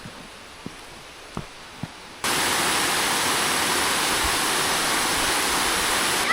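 Faint, even rushing with a few light knocks, then about two seconds in a loud, steady rush of a waterfall cuts in abruptly and holds.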